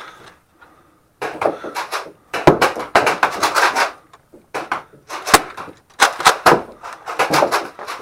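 Bursts of clattering clicks and knocks from hurried movement and foam-dart blaster handling and firing, with two single sharp knocks standing out, about two and a half and five seconds in.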